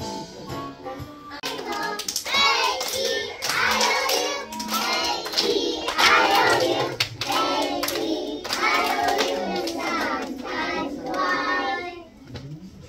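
A group of young children singing a song together, with hand claps. The singing stops about twelve seconds in.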